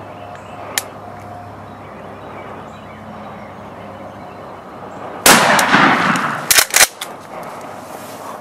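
A single loud shotgun blast about five seconds in, dying away quickly, followed a second later by a few sharp loud knocks.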